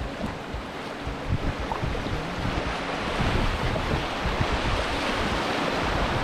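River water rushing over a shallow, rocky riffle around a kayak, getting louder about halfway through as the boat runs into the whitewater. Wind buffets the microphone.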